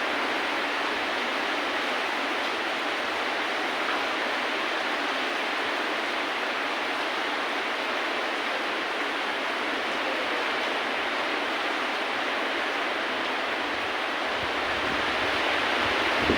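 Steady, even rain with no music. A low rumble swells in near the end.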